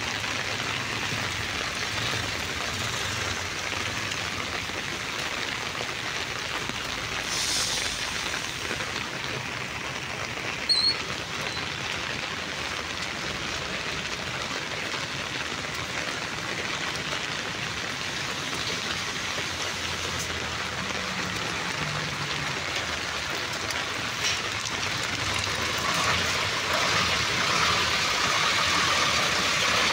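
Steady hiss of rain falling on wet ground. There is a brief sharp click about eleven seconds in, and a motor vehicle's engine grows louder over the last few seconds.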